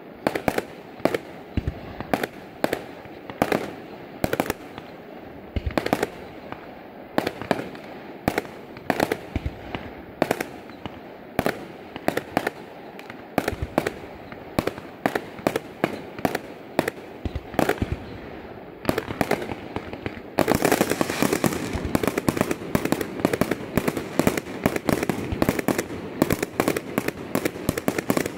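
Aerial fireworks bursting one after another, sharp bangs coming several a second. About twenty seconds in, the bursts thicken into a dense run of rapid pops that carries on to the end.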